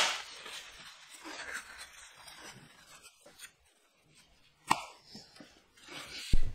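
Faint handling noises: a sharp knock at the start, light rustling and small ticks, and a single sharp click about five seconds in.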